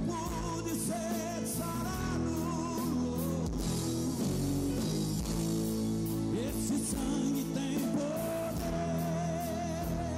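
Live Christian band playing a song, with electric guitar and a steady drum beat under a man singing a wavering, drawn-out melody.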